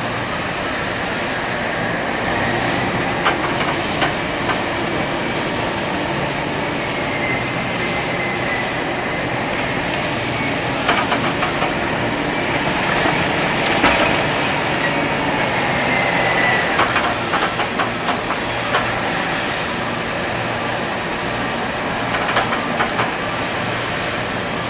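Heavy machinery running steadily, with scattered metallic clanks and a faint high squeal that rises and falls.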